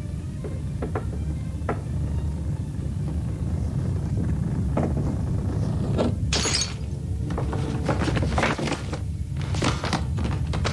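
Film sound of an approaching animal stampede: a steady low rumble that grows louder, with crashes and breaking from about six seconds in, under music.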